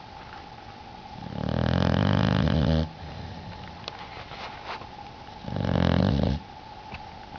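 Blue-nose pit bull puppy snoring: two loud snores, the first about a second and a half long, then a shorter one about two and a half seconds later.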